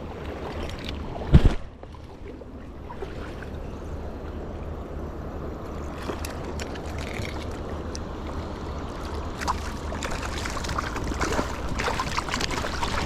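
Steady rush of spring-creek water flowing, with a loud low thump about a second and a half in and scattered sharp clicks growing busier toward the end.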